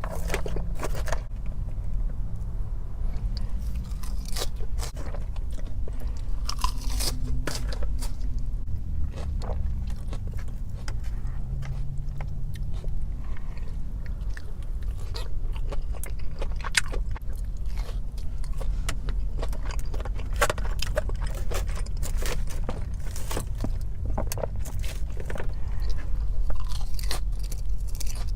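A person chewing and crunching food: many short, crisp bites and mouth clicks at an irregular pace, over a steady low hum.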